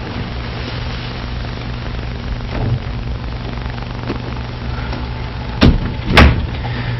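Steady hiss with a low mains hum, broken near the end by two loud knocks a little over half a second apart.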